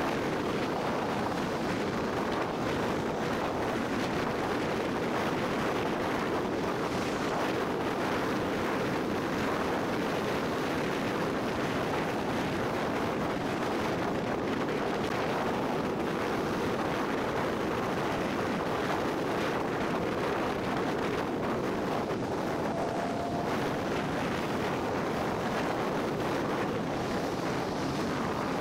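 Steady rushing road and wind noise from a car moving along at road speed, with no distinct events.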